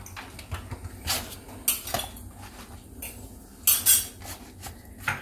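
Scattered clinks and knocks against a cooking pot, with rustling as a banana leaf is laid and pressed down over cooked coconut rice in it.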